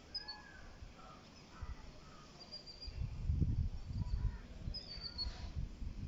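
Faint, scattered high bird chirps, with a low rumbling on the phone's microphone from about three seconds in that is louder than the birds.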